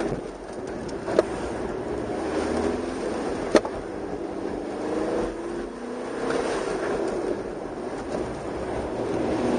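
Turbodiesel (TDI) car engine heard from inside the cabin, its pitch rising and falling repeatedly as the car accelerates and slows through an autocross course. There are two sharp knocks, about a second in and again about three and a half seconds in.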